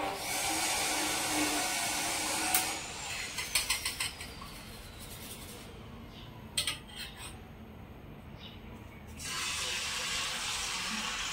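A small electric kitchen-appliance motor runs with a steady whirr, is switched off after a few seconds, and whines down in falling pitch. A few light clinks follow. From about nine seconds in, a steady sizzle rises as beaten egg batter for an omelette is poured into the hot frying pan.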